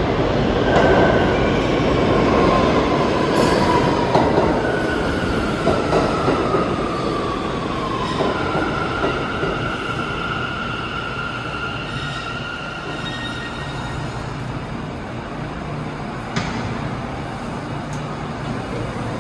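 New York City Subway train running through the station with a loud rumble and high whining tones that fall in pitch over the first several seconds as it slows, then hold steady. A sharp clank comes near the end.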